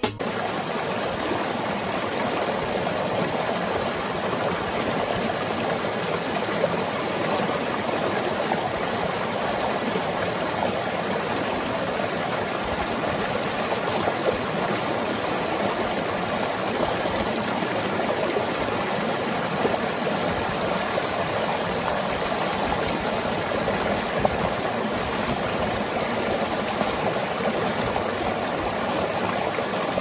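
Steady rush of creek water pouring over boulders in a small cascade.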